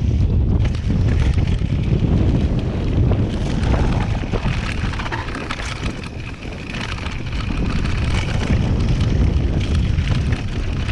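Wind buffeting the microphone of a chest-mounted action camera on a downhill mountain bike riding fast down a dirt trail, mixed with the rumble of the tyres on the dirt and the rattle of the bike over bumps. It eases briefly about six seconds in, then builds again.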